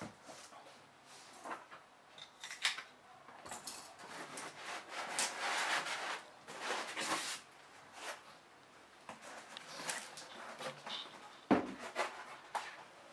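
Cardboard being handled in a big shipping box: the inner cardboard cover sheet scraped, slid and lifted out, with scattered rustles and clicks, a longer rubbing stretch in the middle and a sharp knock near the end.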